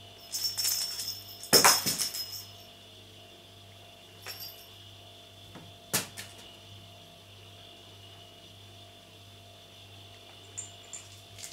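Clear plastic air-cushion packing film crinkling and rustling as a cat shifts and paws in it. A burst of crinkling in the first two seconds holds one sharp crackle, then come a few single clicks, a long quiet stretch, and a little more rustling near the end.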